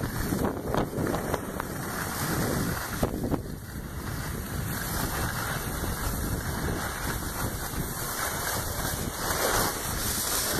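Wind buffeting the microphone of a moving camera, with skis sliding and scraping over packed snow, a steady rushing noise that swells and gusts unevenly.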